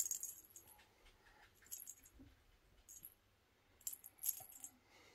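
Small bell in a ball-on-a-string cat toy jingling faintly in several short bursts as the ball is swung and batted by the cats' paws.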